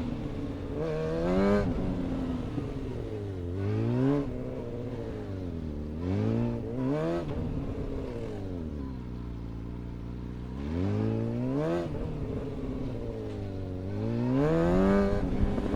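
Suzuki GSX-R750 inline-four engine heard from on board, revving up and down over and over in short throttle bursts through tight low-speed turns. Around the middle it settles into a longer low, steady run before revving up again.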